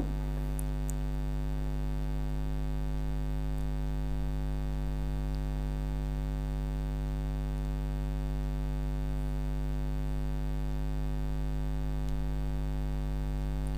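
Steady electrical mains hum, a low buzz with evenly spaced overtones that does not change.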